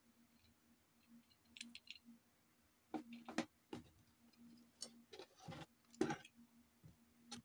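Handling noises of a selfie ring light's parts in a cardboard box: a few light plastic clicks, then scattered knocks and rustles as the phone-holder clip is put down and the gooseneck arms, clamp and cable are moved about.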